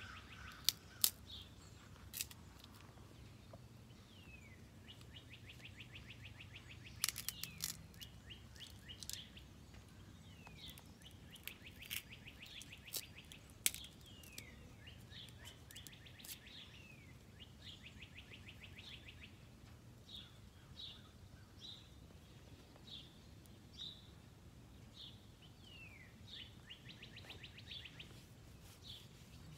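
Small songbirds calling: several rapid trills and short downward chirps, then single high chirps about once a second near the end. A few sharp clicks or snaps sound in between, mostly in the first half.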